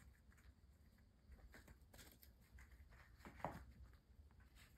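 Near silence with faint light scratching and pattering of kittens' paws scampering on a rubber floor mat, and one brief louder sound about three and a half seconds in.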